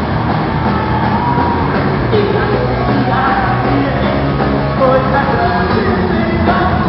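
Live rock band playing: electric guitars with a singer's voice over them, loud and continuous.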